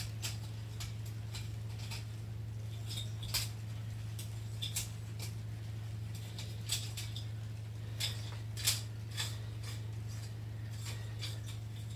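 Scattered light clicks and clacks of plastic keyboard keys being handled and cleaned, over a steady low electrical hum.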